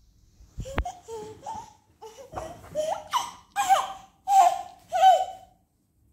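An 11-month-old baby boy laughing and squealing in a string of short, high-pitched bursts that grow louder toward the end. A short bump sounds about a second in.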